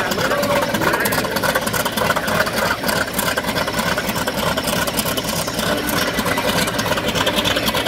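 Grumman TBM Avenger's Wright R-2600 twin-row radial engine idling on the ground, running steadily with a dense, rapid crackle.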